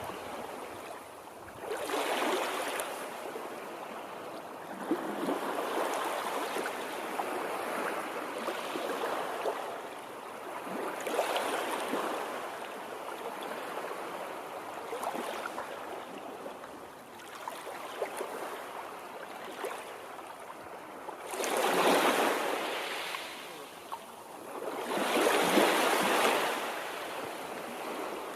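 Water rushing and splashing in uneven swells that rise and fall every few seconds, with two louder surges late on.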